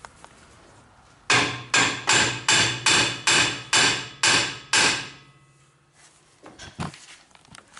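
Steel ball-peen hammer striking a steel square-tube frame rail joint on a race car chassis: about nine quick blows at two to three a second, each with a short metallic ring, tapping the fitted piece down into place. A few fainter knocks follow near the end.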